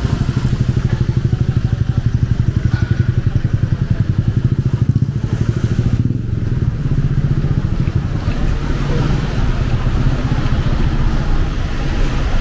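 A motor vehicle engine running close by, a steady low pulsing throb, over general street noise.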